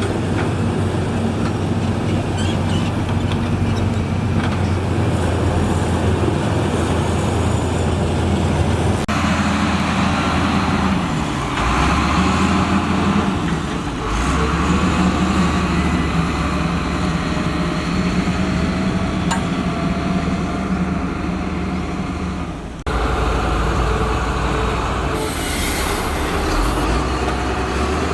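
Heavy road-building machinery at work: big diesel engines running steadily with a low drone. The sound shifts abruptly a few times, with a faint rising whine in the middle.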